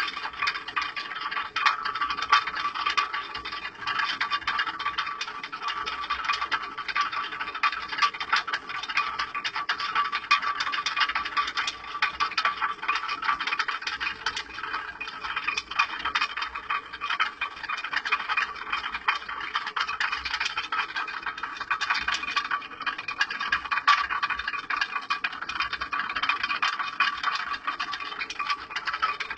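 Water-powered stone flour mill running: a dense, fast, continuous rattling clatter as the wooden feed piece under the grain hopper chatters against the turning millstone, shaking grain down into the stone.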